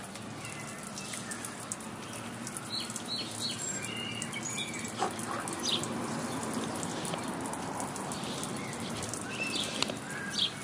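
Oscillating lawn sprinkler's water spray pattering steadily on a paved driveway, with a few short high chirps about three seconds in and again near the end.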